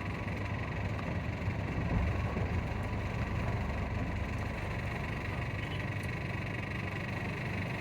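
Steady rain in city streets mixed with a continuous low rumble of vehicle engines and traffic.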